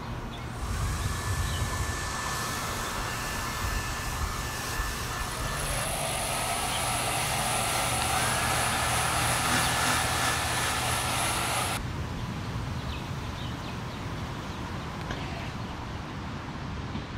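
Steady engine drone with a thin whine that rises in pitch about a second in and again about eight seconds in. A high hiss joins midway, and the whine and hiss cut off abruptly about twelve seconds in, leaving a lower steady rumble.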